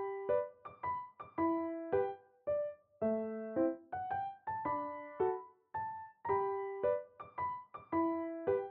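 Background piano music: a gentle melody of single notes and small chords, each struck and then fading, about one or two a second.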